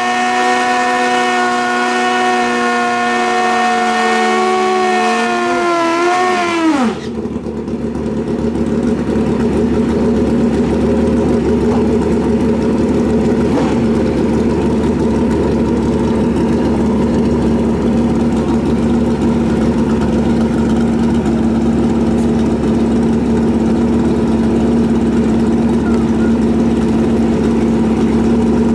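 Drag-racing motorcycle engine held at high, steady revs during a burnout, then the revs fall away quickly about six and a half seconds in. After that the drag bikes idle steadily at the start line.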